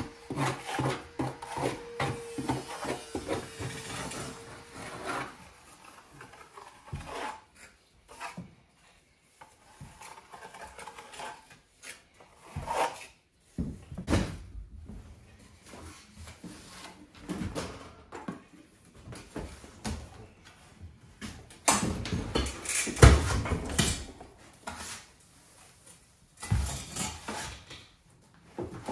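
A small trowel scraping and tapping in a bucket and packing a gap, in irregular scrapes and knocks, the loudest a little past the middle. For the first few seconds a steady hum with rapid ticking runs underneath, then stops.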